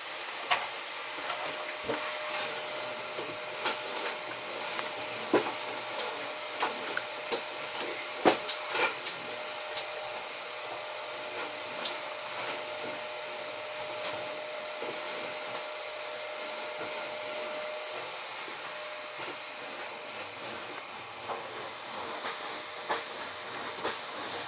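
Dell Precision T5500 workstation's cooling fans blowing with a steady rushing hiss under a full CPU benchmark load, with a faint steady whine through most of it. A run of sharp clicks comes about six to ten seconds in.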